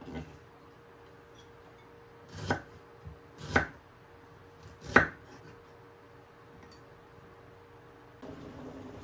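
Three sharp knocks of a knife cutting through ginger onto a wooden cutting board, about a second apart, the last the loudest. Near the end a steady boiling hiss starts.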